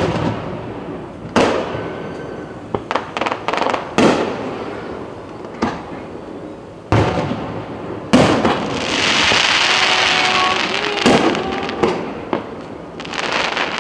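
Aerial fireworks bursting overhead: a series of sharp booms a second or few apart, with bursts of crackling after them, and a long sizzling crackle about two thirds of the way through.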